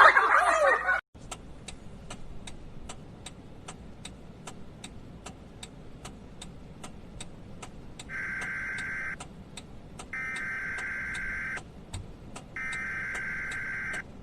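A clock ticking about three times a second, then an alarm beeping in three long steady tones, each over a second long, starting about eight seconds in.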